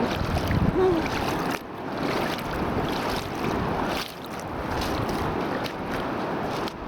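Wind buffeting the microphone over water sloshing around feet wading through a shallow tidal pool, with small splashes from the steps.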